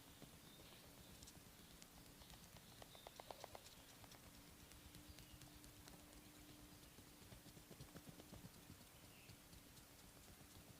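Faint, quick patting and tapping of hands on the body during a massage, with a brief flurry of faster taps about three seconds in, over a faint steady hum.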